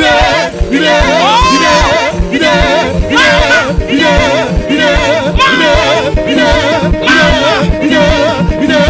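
Loud music: a voice singing wavering, held notes over a steady beat.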